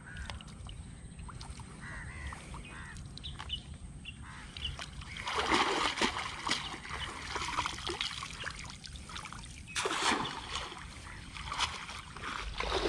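A cast net worked in shallow water. Quiet at first, then splashing and water pouring off the mesh from about five seconds in, and again around ten seconds, as the net is dunked and lifted out.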